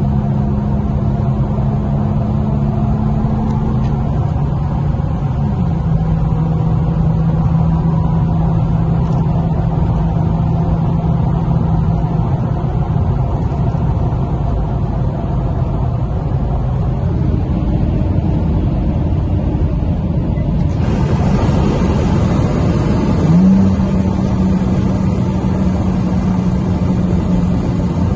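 Infiniti Q50's twin-turbo V6 with an aftermarket exhaust, droning steadily at highway cruise, heard from inside the cabin over tyre and road noise. The engine note drops slightly early on. About three quarters through, a brighter rush of wind and road noise comes in suddenly, and the engine note then briefly rises and swells.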